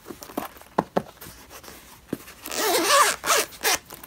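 Zipper of a Bose QuietComfort 35 carrying case being pulled open. A few light clicks and taps come first, then a zip run a little over a second long starting about two and a half seconds in.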